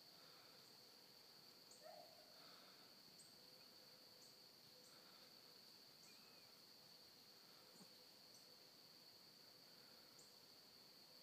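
Near silence: a faint, steady, high-pitched drone of insects in the woods, with a faint short sound about two seconds in.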